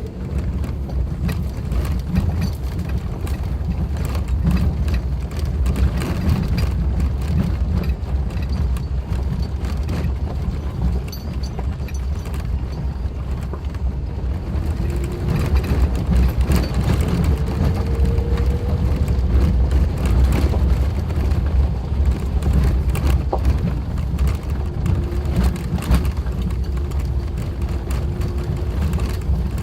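Suzuki Jimny driving over a rough gravel forest track: a steady low rumble with frequent knocks and rattles from the stones and the suspension, and the engine note rising for a few seconds about halfway through before settling.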